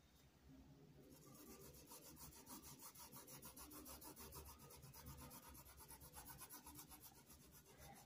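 Faint scratchy rubbing of a paintbrush worked back and forth over cotton fabric, scrubbing paint into the background. It starts about half a second in and comes in quick, uneven strokes.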